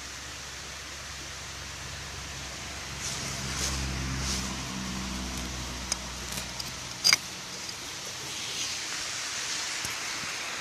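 A low engine-like hum over a steady outdoor hiss. The hum fades out about six and a half seconds in, and a single sharp click sounds about seven seconds in.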